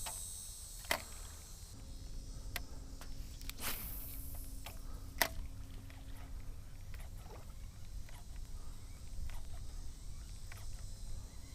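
Wind rumbling on the microphone on open water, with scattered light clicks and knocks and a faint steady hum from about two to seven seconds in.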